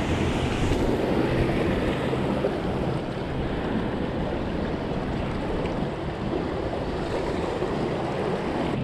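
Steady ocean surf washing against a rock jetty, with wind rumbling on the microphone.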